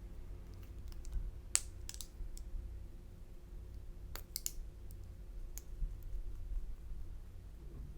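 Clear slime being worked by hand, giving scattered sharp clicks and pops: the loudest about a second and a half in, and a quick cluster of them around four seconds. A low steady hum runs underneath.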